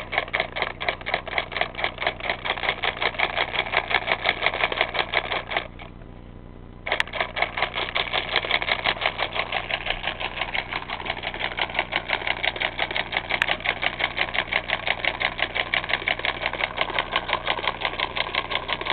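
Homemade solenoid engine with a cash-register solenoid running: the solenoid clacks on each power stroke, an even, rapid mechanical rattle of several clacks a second. The rattle breaks off for about a second around six seconds in, then picks up again.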